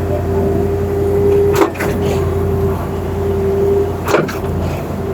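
Concrete pump truck running: a steady engine and hydraulic hum with a whine, broken twice by a sharp knock about two and a half seconds apart, the clunk of the pump changing stroke.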